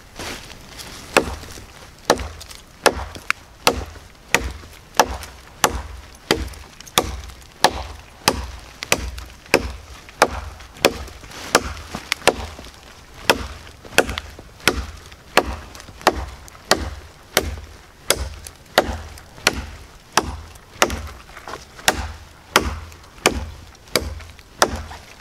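Reapr Tac Bowie knife chopping into a pine log, about one sharp chop a second in a steady rhythm as the blade bites into the wood.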